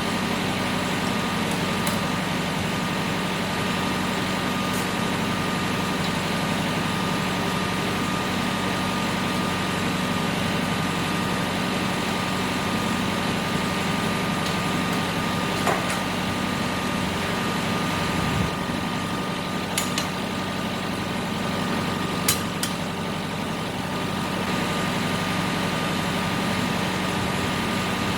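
Tractor engine running steadily, with a few short knocks and clanks partway through.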